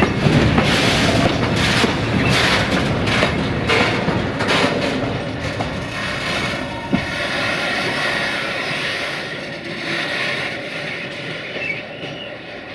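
Railway tank wagons rolling slowly over rail joints and points, their wheels clacking in a run of uneven knocks. The knocks thin out after about five seconds, leaving a quieter rolling sound with a faint thin squeal from the wheels.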